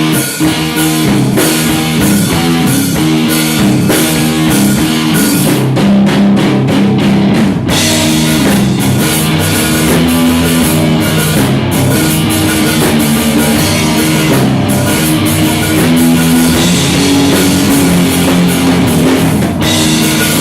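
Live rock band playing loudly, with guitar and drum kit.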